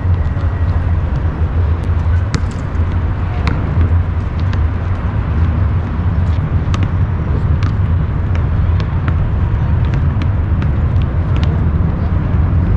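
Basketballs bouncing on an asphalt court: irregular sharp thuds scattered throughout, over a loud, steady low rumble.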